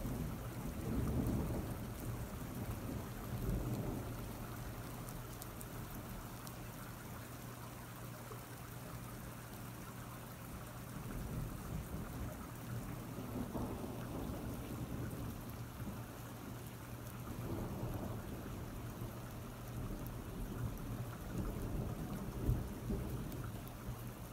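Steady rain falling through a thunderstorm, with low rolling thunder that swells several times, strongest in the first few seconds.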